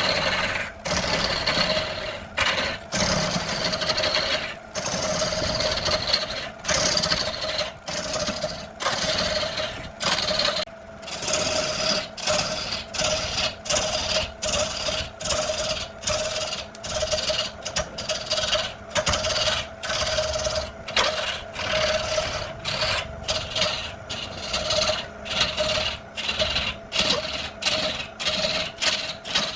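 A woodworking power tool running with a steady whine while wood is scraped or cut in repeated short strokes, about one a second at first and quicker later on.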